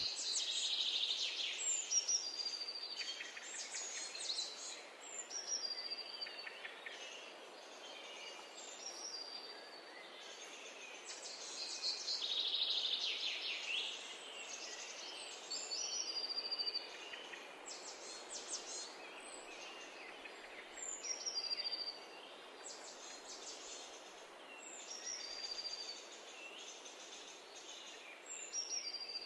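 Songbirds chirping and calling: many short, high chirps and quick falling whistles repeating throughout, over a steady low hiss of outdoor ambience.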